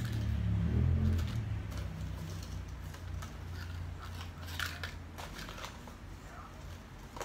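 Light meringue cookies clicking and rattling as they are tipped and shaken out of a clear plastic cup into a glass bowl, with the plastic cup crackling, in scattered bursts. A low hum is louder during the first second or so.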